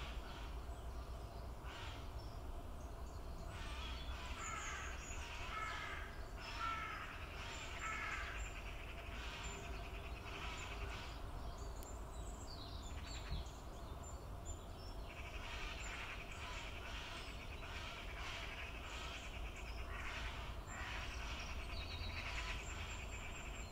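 Birds calling: runs of short, harsh, scratchy calls repeated again and again, with a few short whistled phrases a few seconds in and a steady low rumble underneath.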